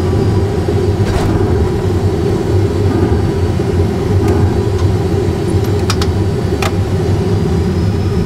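Steady loud rumble of an Airbus A320 full flight simulator's cockpit sound, with its engines and ground roll on the runway. There is a sharp click a little over a second in and three more around six seconds in.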